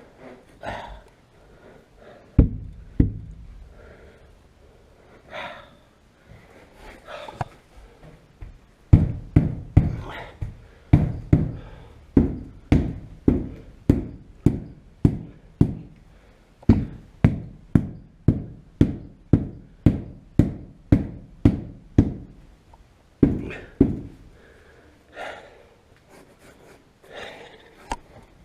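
A run of dull knocks, about two a second for some thirteen seconds, with a few single knocks before and after: the Jaguar Mk2's rear window glass and its rubber seal being knocked into place in the body opening.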